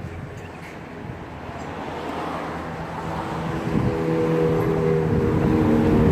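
DJI Phantom 3 Advanced quadcopter's propellers and motors humming in flight, growing steadily louder, with a steady whine of several tones coming in about halfway through.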